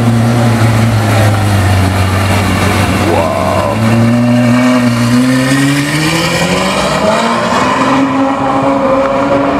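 Ferrari F12berlinetta's V12 engine running at low revs as the car rolls by, then its revs climb steadily from about halfway through as it accelerates away.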